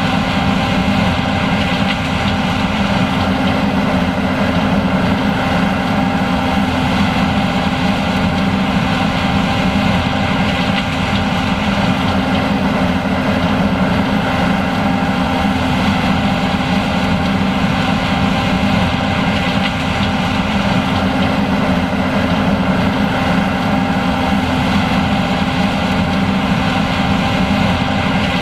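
John Deere S780 combine running steadily while harvesting corn: a constant, loud machine drone with several steady tones held over it.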